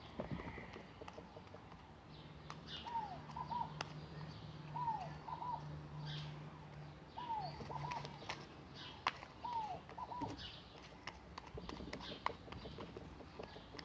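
A bird calling in the background: a falling note followed by two quick short notes, repeated four times about two seconds apart. Scattered sharp clicks and a faint low hum go with it.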